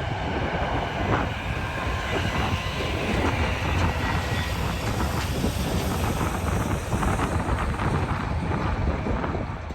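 Jet engines of a landing Boeing 787-9 airliner running with a steady low rumble, mixed with wind buffeting the microphone; the sound begins to fade right at the end.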